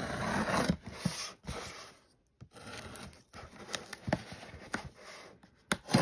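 A craft knife slicing through packing tape along a cardboard box seam, a scratchy scraping as the blade drags through. It stops briefly a little after two seconds, then carries on more quietly, with a few light knocks and taps on the cardboard near the end.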